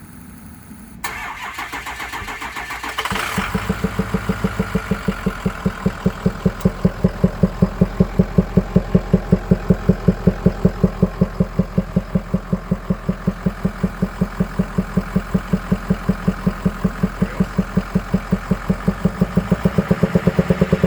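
2003 Ford F-350 pickup engine starting: a sound begins about a second in, and the engine catches just after three seconds. It then runs with a weird rhythmic whooping, an even pulsing of several beats a second.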